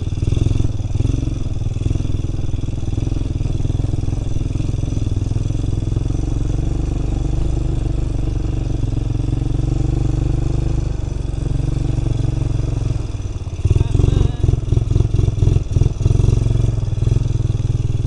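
ATV engine running steadily as the quad is ridden over a muddy, rocky trail. From about three-quarters of the way in, for a couple of seconds, the sound turns choppy, pulsing in rapid bursts as the machine jolts over the rough ground.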